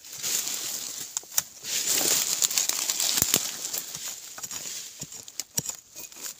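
Gloved hand scraping and brushing dry, crumbly soil away from a buried wild yam tuber: a dry rustling full of small clicks from clods and twigs. The scraping is heaviest for the first few seconds, then thins to scattered ticks.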